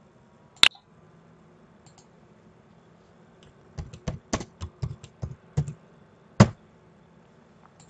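Typing on a computer keyboard. There is one sharp click about half a second in. Later comes a quick run of about ten keystrokes, then one louder key strike near the end.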